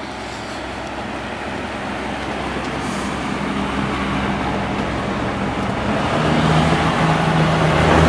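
A 12-inch Penncrest two-speed box fan with a 1.4-amp General Electric motor running on low speed: a steady rush of air over a low motor hum. It grows gradually louder, the hum stronger from about six seconds in.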